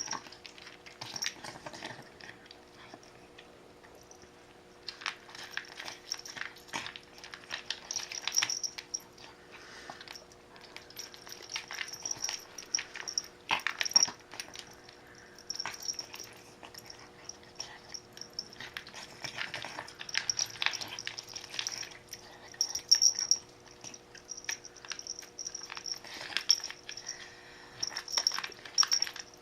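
A pet feeding at its bowl: irregular runs of small clicks and mouth noises, broken by short pauses.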